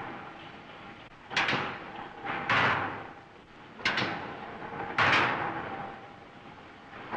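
Multiple punching machine punching a row of holes through a steel ship's plate. Each stroke is a sharp clank followed about a second later by a longer crash that dies away, and the strokes repeat about every two and a half seconds.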